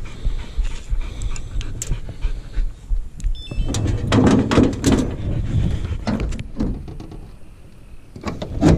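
A mountain cur hunting dog panting after the hunt, along with clicks and rattles of a collar's metal buckle and tracking unit being handled and a sharp click near the end.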